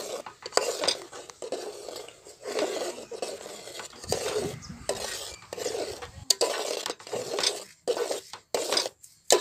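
A steel spoon stirring and scraping milky vermicelli kheer in a metal pot, in repeated strokes about two a second, with a sharp clink of spoon on pot about six seconds in.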